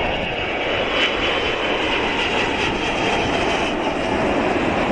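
Airplane engine sound effect: a steady rushing roar with a faint high whine, played for the toy airplane.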